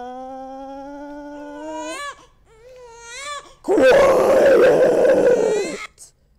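A woman holds one long, slowly rising word for about two seconds. Then a loud wailing baby cry cuts in for about two seconds and stops sharply at a shouted 'Quiet!'.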